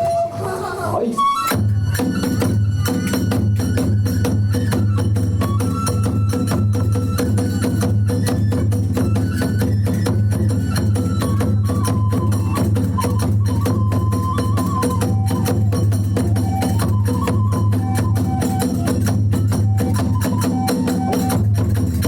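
Kagura hayashi music: a transverse flute playing a melody over fast, steady drumming and clashing hand cymbals.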